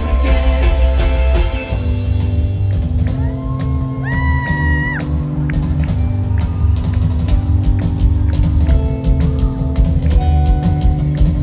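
Live rock band playing an instrumental passage: electric guitars over bass and a steady drum beat. A high note slides up and holds for about a second midway through.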